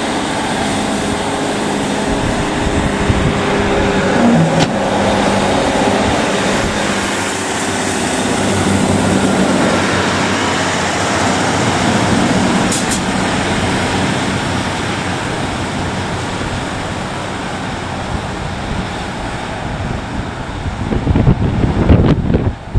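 Diesel engine of a Class 156 diesel multiple unit running with a steady low hum, its Cummins underfloor engine working as the train stands and moves through the platform. Near the end, loud irregular rumbling like wind buffeting the microphone.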